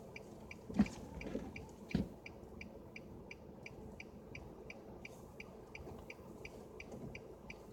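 A car's warning chime beeping evenly, about three short high beeps a second, with two dull thumps about one and two seconds in.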